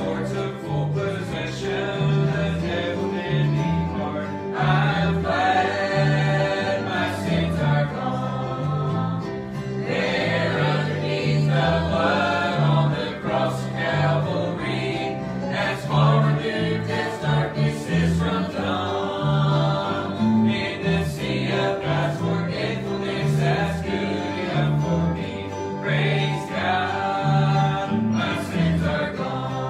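Live gospel song: acoustic guitars strummed and picked under singing voices, which come in phrases of a few seconds with instrumental stretches between them.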